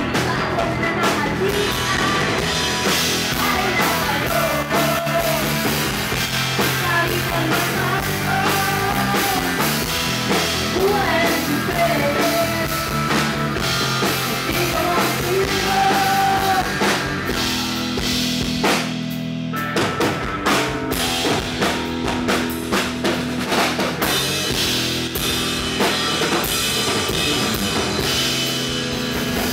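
Rock band playing, drum kit to the fore with guitars and a melody line above. About two-thirds of the way through the sound turns choppy, with a run of sharp hits.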